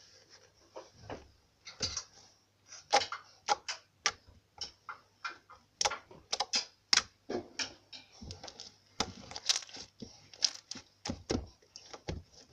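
Glittery slime being kneaded and pressed flat against a tabletop by hand, giving irregular wet clicks and pops, several a second.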